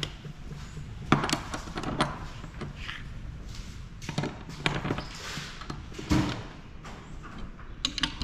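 Irregular metallic clinks and knocks of a wrench being worked against a metal measuring fixture mounted on a manual transmission, a few of them sharper than the rest.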